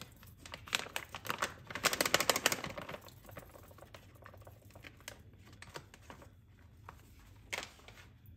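Handling of a pancake-mix packet: a quick run of crisp crinkles and clicks over the first three seconds, then a few separate single clicks.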